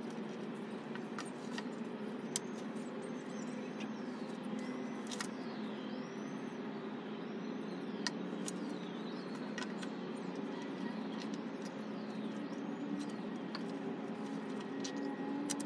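Scattered sharp clicks and knocks as wooden bench parts are handled during assembly, over a steady low outdoor hum. Through the middle, a bird gives a run of short, repeated high chirps.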